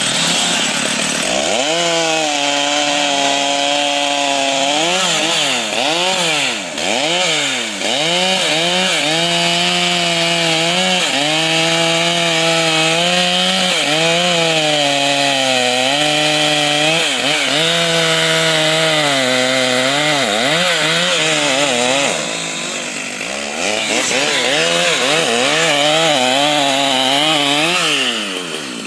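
Stihl two-stroke chainsaw running at high revs while cutting wood, its engine note sagging and picking up again over and over as the chain loads in the cut. It eases off briefly twice, once about six seconds in and again about three-quarters of the way through.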